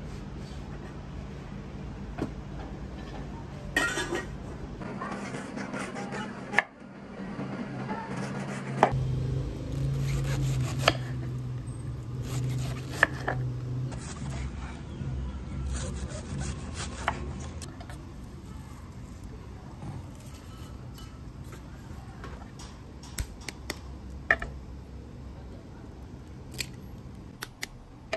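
Chef's knife shredding a head of white cabbage on a wooden cutting board: crisp cuts with the blade knocking the board, thickest in the middle and thinning out to scattered clicks toward the end. A steady low hum runs underneath.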